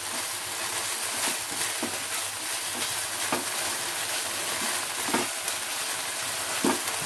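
A paste of spices and chhana (fresh curd cheese) sizzling in oil in a nonstick frying pan while a silicone spatula stirs it: a steady sizzle with a few short scrapes of the spatula on the pan.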